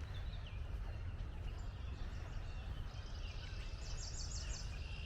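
Small songbirds calling outdoors: repeated short chirps, with a quick high trill of about six notes around four seconds in, over a steady low rumble.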